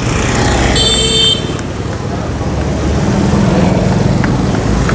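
Road traffic noise with a vehicle engine passing close, and a brief horn beep about a second in.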